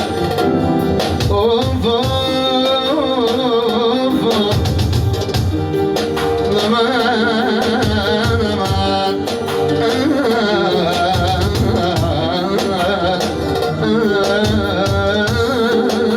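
Tallava music in an instrumental break between sung verses: a wavering, ornamented lead melody over chords and a steady drum beat.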